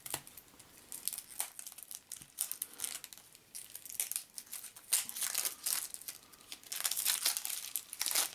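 Cellophane shrink-wrap being picked at, torn and peeled off a small card-deck box, giving irregular crinkles and crackles, with a denser run of crackling near the end.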